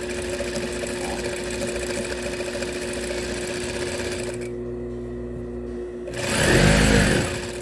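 Straight-stitch sewing machine running, stitching a hem through a cotton floor cloth, with its motor's steady hum underneath. The stitching stops about four and a half seconds in while the hum goes on, and a brief louder sound comes near the end.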